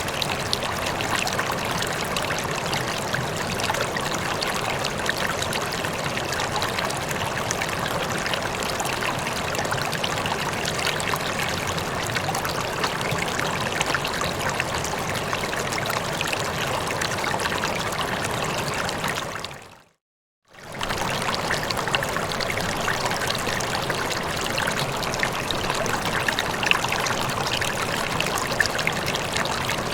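Rippling water trickling and burbling steadily, thick with small splashes. About two-thirds of the way through it fades out to silence for about a second, then comes straight back.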